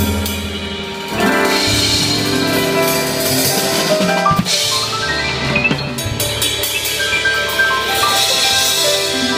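Live jazz band playing: a drum kit with swelling cymbal washes under sustained melodic notes and a bass line.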